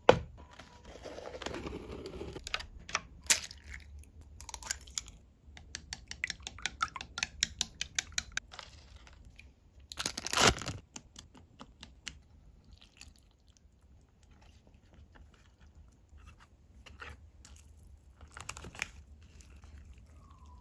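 Close-up handling and opening of an instant-noodle paper cup: crinkling and tearing of the packaging, a run of quick crackles, and the paper lid peeled back loudly about ten seconds in, followed by fainter rustles and taps.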